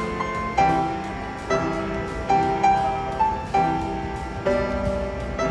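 Upright street piano being played slowly: a gentle melody of single held notes, struck about every half to one second, over soft low chords.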